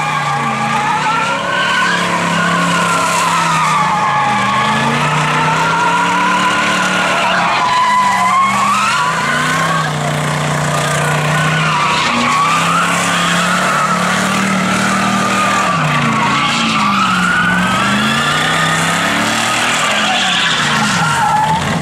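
Pontiac Trans Am doing donuts: continuous wavering tire squeal from the spinning rear tires over the V8 engine held at high revs, its pitch rising and falling again and again as the car circles.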